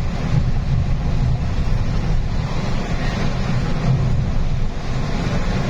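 Steady low engine and road rumble heard from inside a truck cab moving along a highway.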